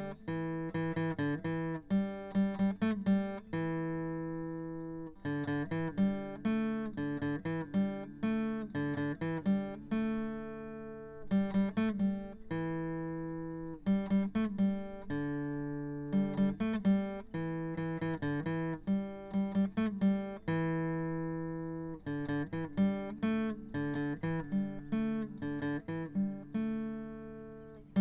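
Acoustic guitar music: quick runs of picked notes alternating with longer ringing chords.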